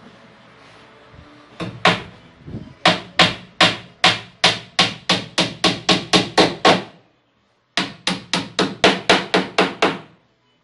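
Hammer nailing into a plywood panel. A few scattered taps come first, then a steady run of blows at about four a second. After a short break, a second run follows.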